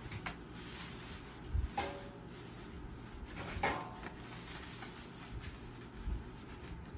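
Objects being handled: four light knocks and clatters spread over several seconds, the second and third the loudest, over a low steady background hum.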